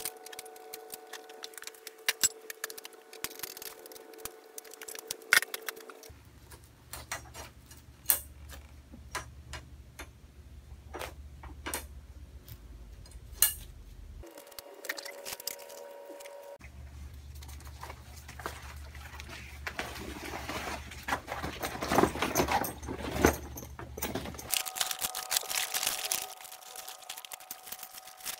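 Metal grow-tent frame poles clinking and knocking as they are fitted into the corner connectors, in many short sharp strikes. Near the end the knocks grow denser, with rustling as the tent's fabric cover is lifted onto the frame.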